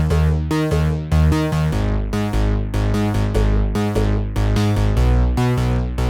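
Background music played on a synthesizer or electric-piano-like keyboard. Evenly repeated notes come about three a second, and the bass moves lower about two seconds in.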